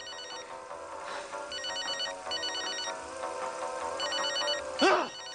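Mobile phone ringtone going off: short bursts of high electronic trilling repeated about a second apart. A brief loud sliding vocal sound cuts in near the end.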